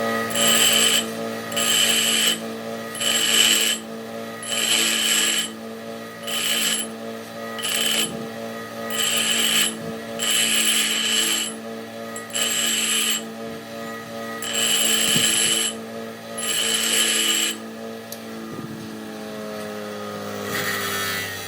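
Metal lathe running with a steady hum, broken by about a dozen short, high-pitched bursts as a cutting tool bites into metal, with falling tones near the end.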